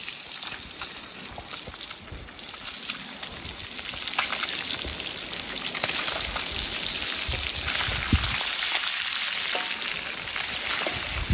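Fish frying in hot oil, a steady dense sizzle with many small crackles, growing louder about four seconds in.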